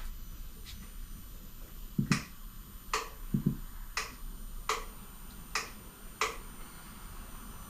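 A series of sharp clicks, six of them about a second apart, with two dull knocks, one about two seconds in and one about three and a half seconds in.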